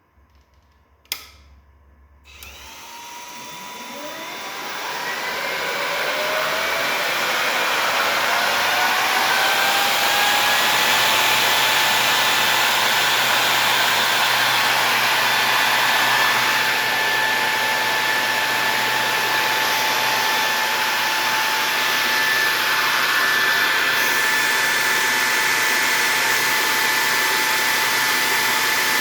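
A click, then the cooling fan of a Murata D1U-W-2000-48 server power supply spinning up. Its whine rises in pitch over several seconds, then settles into a steady high-speed rush of air with a constant whine.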